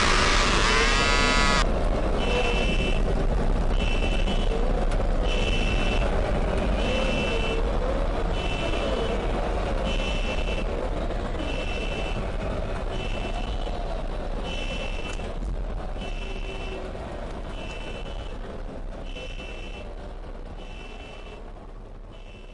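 Electronic alarm beeping, one short high beep about once a second, over a noisy urban rumble with wavering tones, the whole mix slowly fading out. It is preceded by a loud noisy burst with rising tones that cuts off suddenly in the first two seconds.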